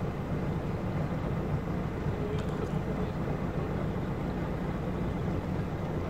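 Steady low rumble of a small motor launch under way on the river.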